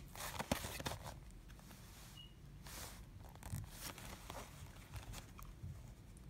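Faint handling noise of a Blu-ray case in its cardboard slipcover being turned over in the hands: brief rustles and a few light clicks, the loudest cluster about half a second in.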